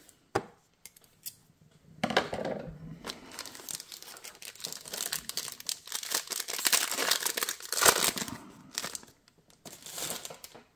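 A foil trading card pack crinkling and tearing as it is opened by hand. The crackle is loudest about eight seconds in, and there is a single click just after the start.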